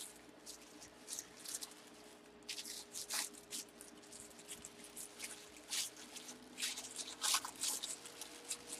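Plastic packaging rustling and crinkling as it is handled, in short scattered crackles, over a faint steady hum.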